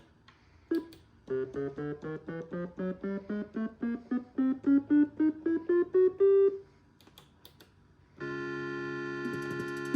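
Omnichord OM-84 electronic instrument playing a run of short notes, about four a second, that step steadily upward in pitch. After a brief pause with a few button clicks, a full sustained chord sounds near the end.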